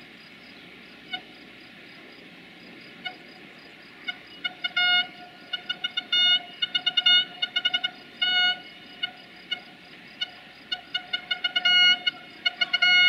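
A train horn giving many short toots of one pitch. A few single pips come first, then from about four seconds in a rapid, uneven run of toots with some longer blasts among them. Behind it is a faint steady insect chorus.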